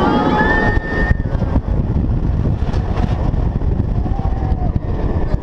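Loud steady rush of wind on the microphone and the rumble of a roller coaster train running along its track, with a brief high whine in the first second or so.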